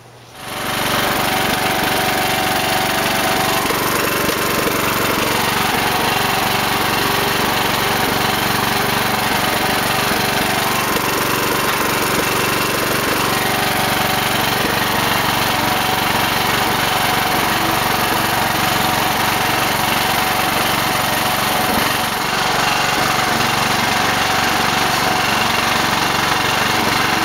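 2005 Bolens (MTD) riding mower's engine running steadily under way as the mower is driven across a lawn, heard from the driver's seat.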